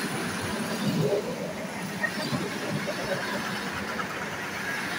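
ED4M electric multiple unit rolling slowly along the platform, a steady rumble of its wheels and running gear.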